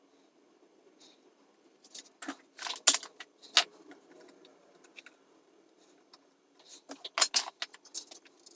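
Small metal hand tools clicking and clinking in two quick clusters a few seconds apart, over a faint steady hum. The audio is sped up, from work replacing grid leak resistors in a tube amp chassis.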